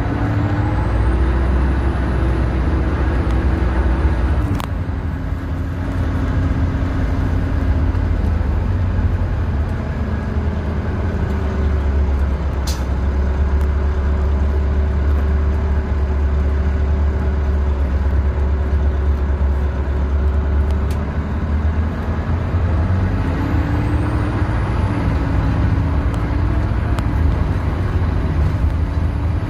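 Interior sound of a 2001 Orion V bus's Detroit Diesel Series 50 EGR engine and Allison B500R6 automatic transmission under way, with a heavy low rumble. The engine note climbs as the bus accelerates about a second in and again near the end, with a faint high whine rising alongside. A couple of sharp clicks come from the bus body.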